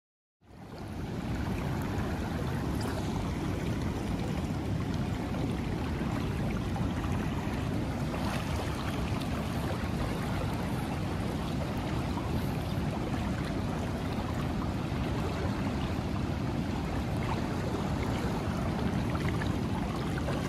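Steady rushing of a fast, wide river current, fading in about half a second in and then holding even, with a heavy low rumble.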